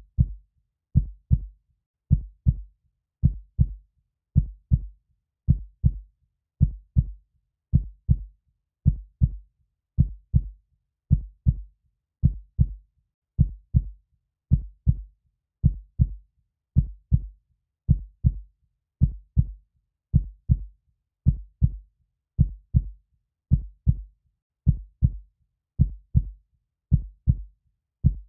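Heartbeat, a steady lub-dub: pairs of short low thumps repeating evenly a little over once a second, with silence between the beats.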